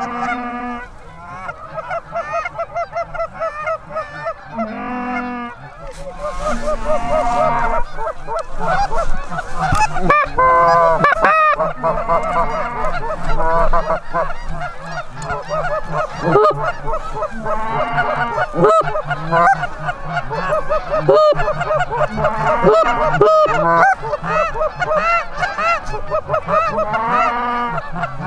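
A large flock of Canada geese honking, many overlapping calls at once, the chorus getting louder and denser about six seconds in.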